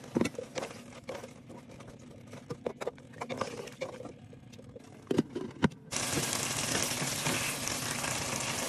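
Wooden spatula stirring beef curry in a nonstick pot, clicking and knocking against the pot. About six seconds in, a steady sizzling hiss of the simmering curry starts abruptly.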